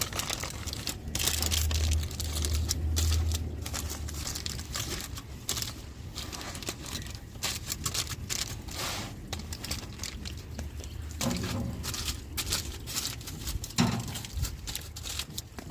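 Aluminum foil being folded and crinkled closed around a roast: an uneven run of crisp crackles and rustles. A low rumble sits under the first few seconds.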